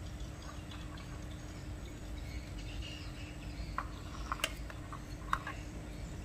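Wet squelches and small clicks of hands handling skewered squid in a spice marinade, with a few sharper clicks around four to five seconds in, over a steady low hum and faint bird chirps.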